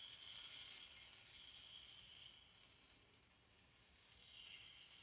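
Thin cocoa-tinted rice batter sizzling as it is piped in lines onto a hot oiled tawa over a low flame: a faint, steady, high hiss.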